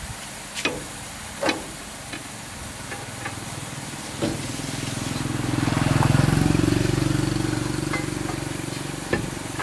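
A few sharp metallic clinks of a lug wrench and long pipe bar working a truck wheel's lug nuts. From about halfway, a passing motorbike engine swells to a peak and fades away.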